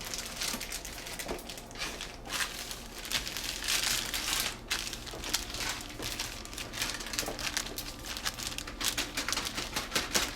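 Empty Doritos bag crinkling irregularly as it is handled and rubbed dry after its outside was wetted.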